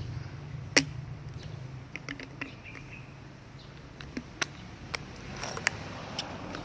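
A few scattered sharp clicks and taps, the loudest about a second in, over a low steady hum that fades early on.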